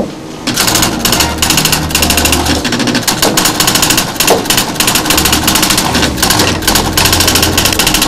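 Teleprinter printing out an incoming message, a rapid continuous mechanical chatter of print strokes that starts about half a second in.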